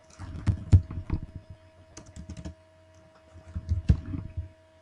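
Typing on a computer keyboard: quick keystrokes in three short runs, the first and last the busiest.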